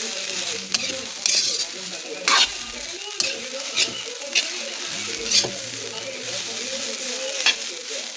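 Shredded bamboo shoots sizzling in a metal wok as they are stir-fried. A metal ladle tosses them, scraping and knocking against the pan about eight times.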